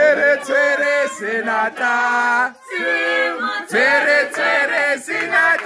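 Voices singing together in a choir-like song.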